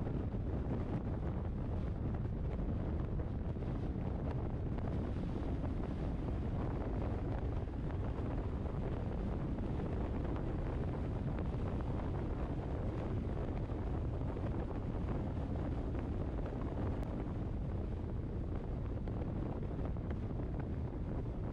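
Steady wind noise buffeting the microphone, over the low road rumble of a moving vehicle, with no sudden events.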